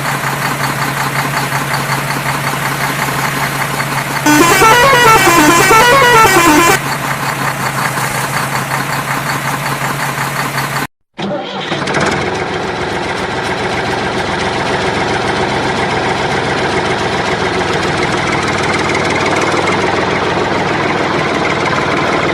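Vehicle engine running steadily, broken about four seconds in by a loud warbling horn that rises and falls twice over about two and a half seconds. The sound cuts out briefly about halfway through, then an engine runs on steadily.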